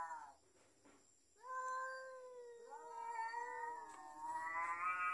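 Cats yowling at each other in a territorial standoff, the warning cries of a cat fight. Long, drawn-out, wavering yowls: one trails off at the start, and after a brief pause more follow from about a second and a half in, the last rising near the end.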